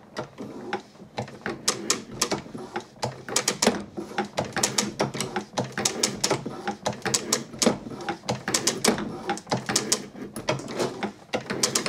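Drummond Mk2 hand shaper worked by its hand lever, the ram stroking back and forth as the tool cuts across rough steel with the feed engaged. A rapid, uneven run of metallic clicks and knocks, several a second.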